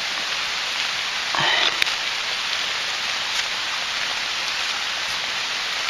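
Heavy rain pouring down, a steady even hiss, with one short faint click just under two seconds in.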